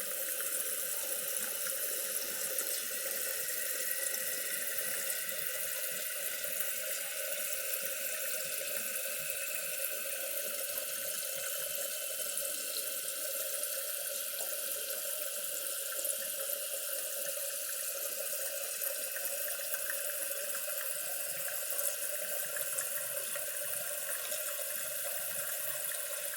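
Toilet tank refilling through its fill valve after the water supply is turned back on: a steady hiss of running water.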